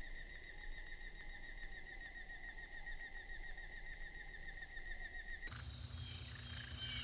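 Slowed-down bird call: a steady, rapidly pulsing trill held at one pitch. It cuts off abruptly about five and a half seconds in, giving way to a low hum and faint chirps.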